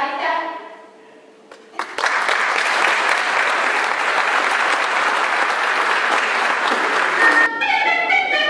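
A children's choir's last sung chord fades out, then after a short pause an audience claps steadily from about two seconds in. About seven and a half seconds in, instrumental music starts.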